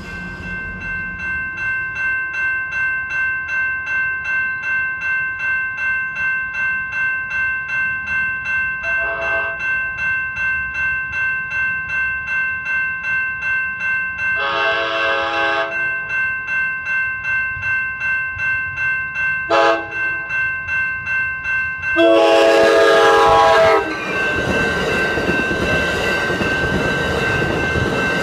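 Grade-crossing warning bells ringing about two and a half times a second as an Amtrak Pacific Surfliner train approaches. The train horn sounds the standard crossing signal of two long blasts, a short one and a final long, loud blast, and then the bilevel cars rumble through the crossing.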